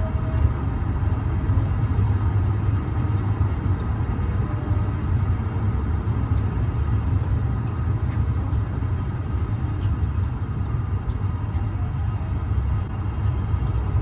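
Steady low rumble of road traffic passing.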